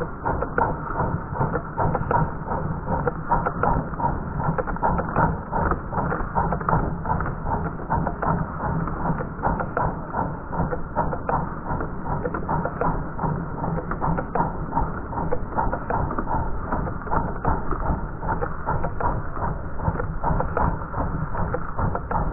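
Gauge 1 model locomotive running, a steady rhythm of short beats about three a second.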